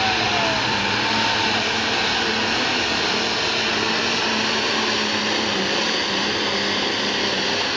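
Modified diesel pulling tractor's engine running flat out under heavy load while dragging a weight-transfer sled, a loud steady drone with no letup.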